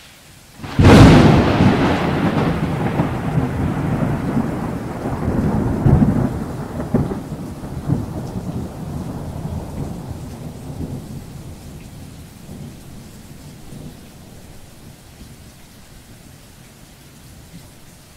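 A sudden thunderclap about a second in, then thunder rolling with several swells and fading away over about ten seconds. Steady rain hisses underneath and carries on after the rumble dies.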